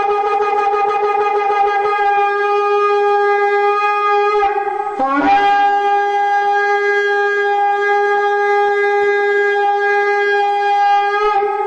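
Shofar blowing two long held blasts, the second sliding up in pitch into its note about five seconds in.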